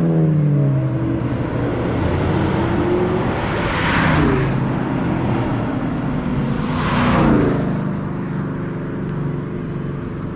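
Several cars driving past one after another, their engine notes falling in pitch as each goes by. Two louder passes come about four and seven seconds in.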